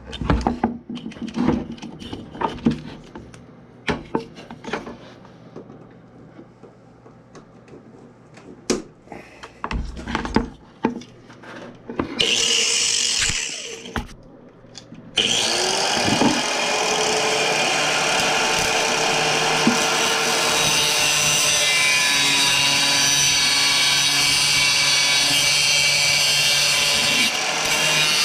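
Tools being picked up and set down with knocks and clatter, then, about halfway through, a power tool starts up and runs steadily and loudly. This fits power sanding during the restoration of a small sledgehammer.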